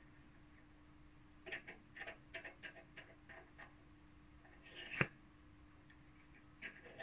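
Small metal clicks and taps as a brass cylinder block is slid on and off a close-fitting turned brass piston, then a short hiss ending in one sharp, louder click about five seconds in. The fit is close to air-tight.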